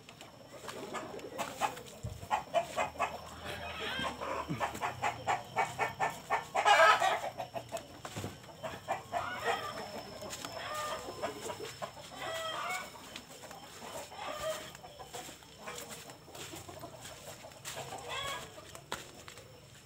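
Free-range kampung chickens (KUB × Bangkok crossbreds) clucking and calling around the coop, with one louder call about seven seconds in and scattered short calls after it.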